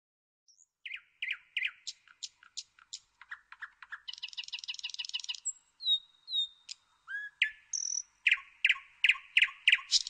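Nightingale singing: a string of varied phrases with short pauses between them, including runs of repeated notes, a fast rattling trill, thin whistles, and a series of loud repeated notes near the end.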